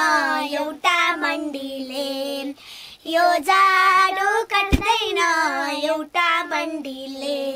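Young girls singing together in high, wavering voices, breaking off briefly about two and a half seconds in before carrying on. A single short knock sounds just before the five-second mark.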